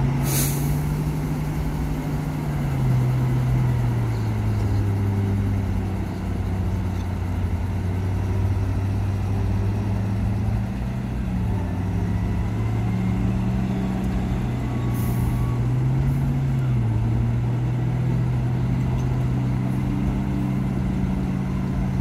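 Diesel dump truck engines running, their pitch stepping up and down a few times as a truck raises its bed to tip its load of soil. A short hiss of air comes near the start and another about fifteen seconds in.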